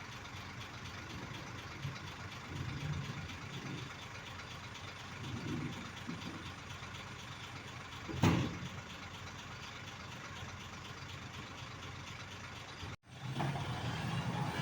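Heavy excavator's diesel engine running, swelling a few times as it works, with one sharp loud bang about eight seconds in. Near the end the sound drops out for a moment and comes back louder.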